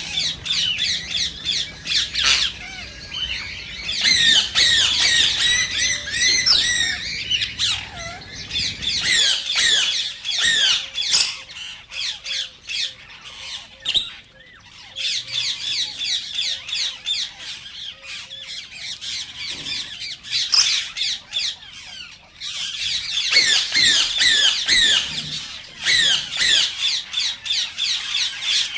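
Indian ringneck parakeet (rose-ringed parakeet) calling: rapid strings of shrill, high squawks, each falling in pitch, coming in bursts with short breaks. A low hum runs under the first third.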